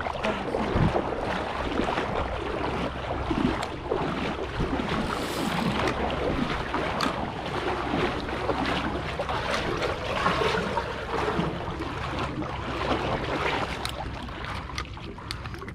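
Boat moving through calm water with a steady wash of water and wind noise on the microphone, over a low steady hum from the Minn Kota electric trolling motor.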